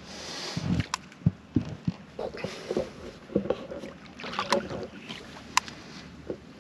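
Handling noise on a small fishing boat: several dull knocks in the first two seconds and a few sharp clicks, with rustling and scraping between them, as a catfish rod is held bent against a hooked fish.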